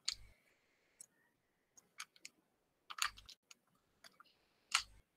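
Faint, scattered clicks and taps, about one a second, with near silence between them.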